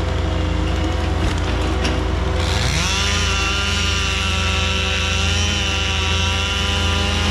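Two-stroke chainsaw revving up about two seconds in and held at full throttle, as when cutting wood, then dropping off near the end. A machine's engine drones steadily underneath.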